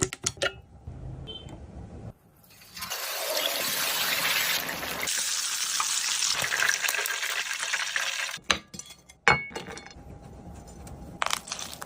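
Whole chicken sizzling in hot frying oil: a steady hiss lasting about five seconds, with a few sharp clinks and knocks toward the end.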